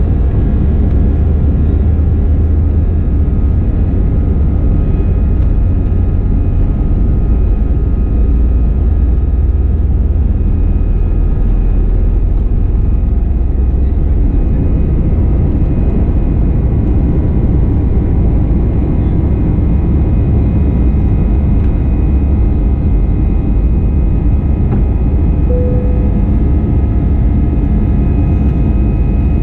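Cabin noise of an Airbus A320-214 taking off: its CFM56 engines at takeoff thrust, heard from a window seat over the wing, give a loud steady roar with a deep rumble and steady whining tones through the takeoff roll and lift-off.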